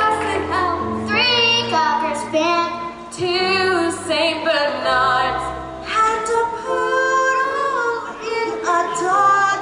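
Children singing a line of a Christmas song one after another into a handheld microphone, over a live band with held bass notes.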